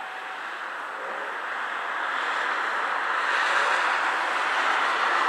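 An approaching train, its running noise growing steadily louder.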